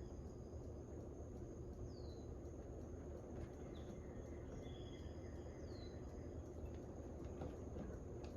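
Faint outdoor background: a steady low rumble with a thin steady high insect drone, and a bird chirping twice with short falling notes.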